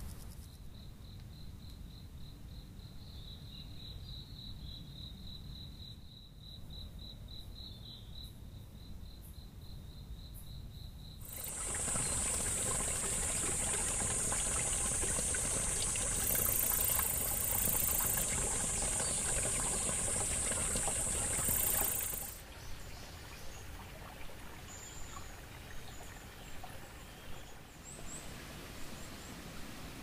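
Outdoor insect ambience. A high-pitched insect call pulses steadily for about the first eleven seconds. It gives way to a much louder stretch of rushing noise under a shrill, steady insect buzz, which cuts off suddenly about two-thirds of the way through, leaving quieter ambience with a few faint high chirps.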